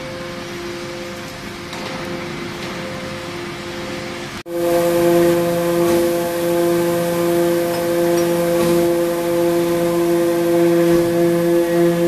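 Scrap metal baler's hydraulic power unit running with a steady, pitched hum. It breaks off for an instant about four and a half seconds in and comes back louder.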